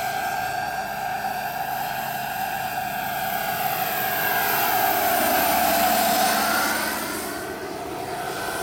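JetCat PHT3 turbine of a 1:4 scale EC 145 model helicopter running with a steady whine over the rotor noise as the helicopter flies past. It grows louder a little past the middle, then dips near the end.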